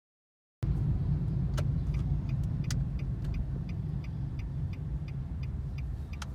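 Steady low engine rumble, with faint regular ticking about twice a second, starting abruptly about half a second in.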